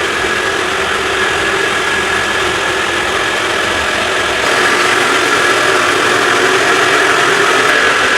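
A motor running loudly and steadily with a faint constant whine, getting a little louder about halfway through.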